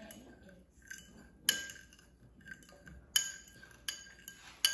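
A metal fork clinking against a ceramic bowl as eggs are beaten: several sharp, ringing clinks spaced out about a second apart.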